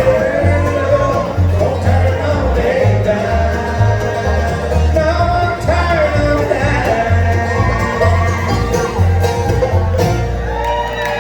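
Live acoustic bluegrass band playing an instrumental passage. Bass notes keep a steady pulse underneath while the lead lines slide and bend in pitch.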